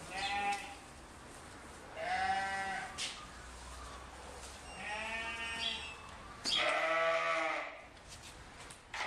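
Four bleats from a farm animal, each lasting about a second, with the loudest and longest one about six and a half seconds in.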